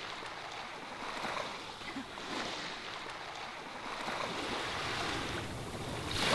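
Small waves washing on a sandy beach shore, a steady wash that gently swells and eases.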